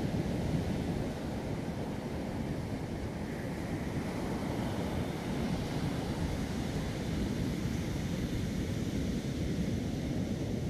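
Black Sea storm surf: waves breaking and washing up a sandy beach, a steady rushing noise with no let-up.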